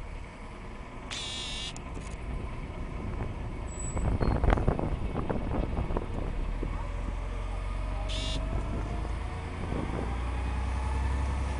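Outdoor dockside ambience: a steady low rumble of vehicles and engines, growing a little louder in the second half. A cluster of knocks and clatter comes about four to six seconds in, and two brief wavering high squeals come about a second in and again about eight seconds in.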